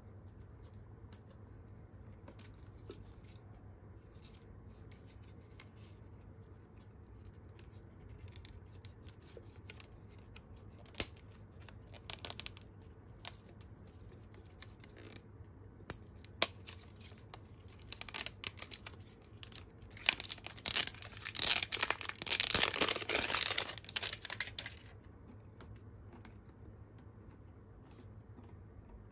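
Plastic shrink-wrap label being torn along its perforation and peeled off a PET drink bottle: scattered light crackles and clicks of handling the plastic, then a few seconds of dense tearing and crinkling that is the loudest part.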